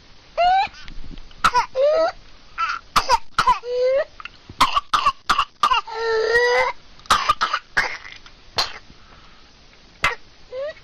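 Whooping cough (pertussis) fit in a child: runs of sharp coughs in quick succession with barely a breath between them, broken by short high-pitched whooping in-breaths that rise in pitch. The 'gallito' crowing whoop is the typical sign of pertussis. The coughing eases off near the end.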